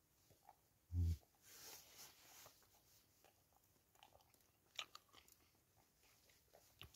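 A person chewing mouthfuls of a soft tortilla wrap, quiet wet chewing with small clicks of the mouth, and a short low hum of a voice about a second in.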